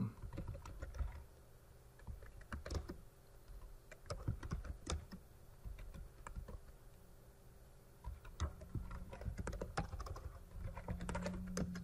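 Computer keyboard being typed on: short runs of key clicks with pauses between them.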